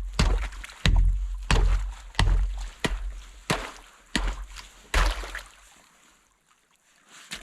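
Repeated hard strikes chopping through thick ice on frozen livestock water, about one every two-thirds of a second. They pause about five seconds in, and one more strike comes near the end.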